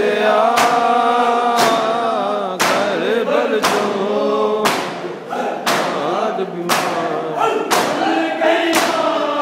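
A group of men chanting a noha (Shia lament) together, with hands striking bare chests in unison about once a second in time with the chant: matam, ritual chest-beating.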